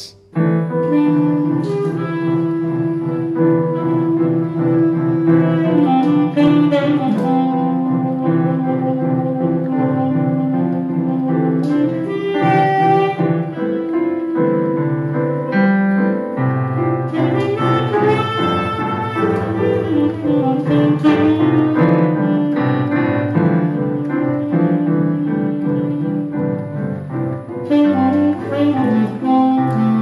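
Saxophone and digital piano jamming in a loose jazz style, the saxophone playing long held notes that change every few seconds over the piano, which is played by a child.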